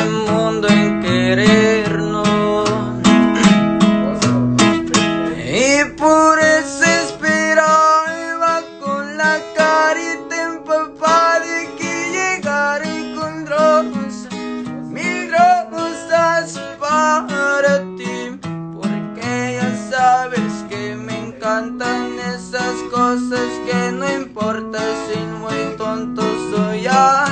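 Acoustic guitar strummed in changing chords, with a man singing along.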